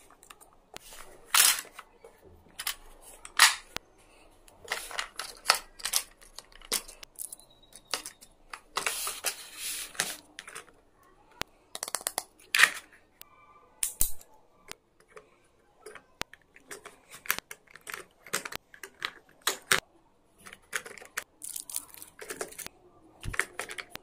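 Irregular plastic clicks, snaps and rattles from a button-operated plastic pencil case as its pop-out compartments are opened and its pieces handled, with a longer rustle of sliding plastic around the middle.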